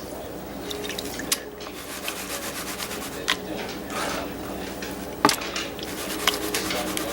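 Wet gravel and sand sloshing and grinding in a plastic gold pan of water as it is shaken and swirled to pan down concentrates, with a few sharp clicks of stones against the pan.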